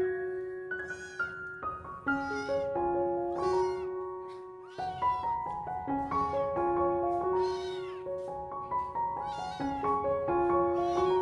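A kitten meowing over and over in high, rising-and-falling cries about once a second, with background music underneath.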